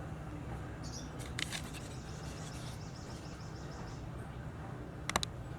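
Small bird chirping faintly, with a short run of quick repeated high notes about two seconds in, over a steady low hum; a few sharp clicks near the end.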